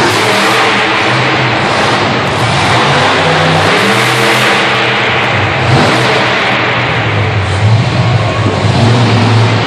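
Monster truck engine revving hard, its pitch rising and falling over and over, loud inside an enclosed arena.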